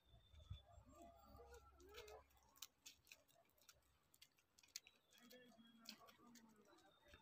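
Near silence: faint outdoor ambience with scattered faint clicks and faint distant voices.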